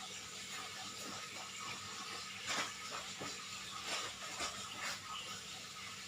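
A steady hiss over a low hum, with a few sharp clicks or taps, the loudest about two and a half seconds in.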